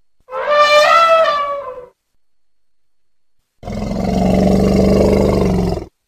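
Two elephant calls: a high, brassy trumpet lasting about a second and a half, its pitch rising slightly and then falling, and after a short gap a lower, rougher roar lasting about two seconds.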